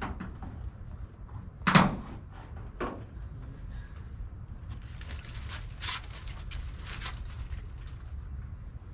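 Plastic hood protector knocking against a pickup's sheet-metal hood as it is pressed into place for a test fit: one sharp, loud knock about two seconds in, then lighter clicks and taps. A low, steady rumble runs underneath.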